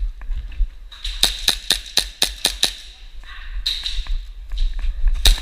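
Airsoft pistol firing a fast string of about eight sharp shots, roughly five a second, starting about a second in, then another quick pair of shots near the end. The shots come from an HPA-tapped Tokyo Marui Hi-Capa gas blowback pistol.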